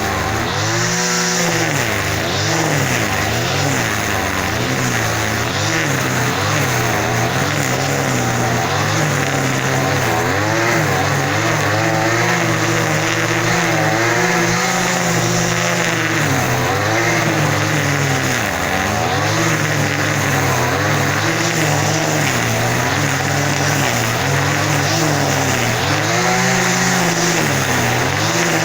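A small engine running continuously, revving up and down again and again, its pitch rising and falling every second or two.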